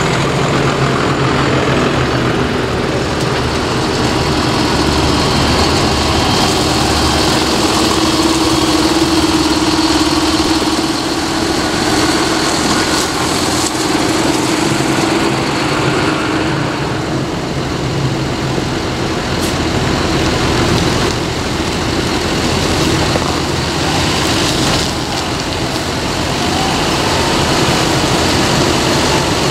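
A line of modern diesel farm tractors driving slowly past one after another, their engines running steadily.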